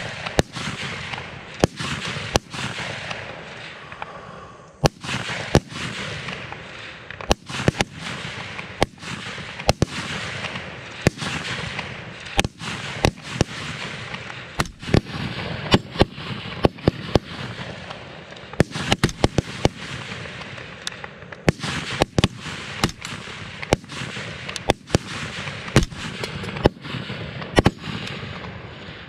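Rapid-fire string of rifle shots along a highpower firing line, including the shooter's own AR-15 and the rifles beside it. Many sharp cracks come at irregular spacing, sometimes several within a second, with a rolling echo filling the gaps.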